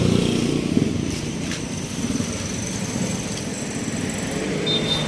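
Small motorcycle engine idling steadily, with a few light clicks over it.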